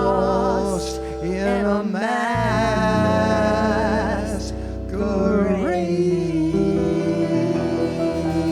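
Live duet of a man and a woman singing the drawn-out closing line of a slow jazz ballad with vibrato, over guitar accompaniment. The singing ends about five seconds in and the guitar plays on.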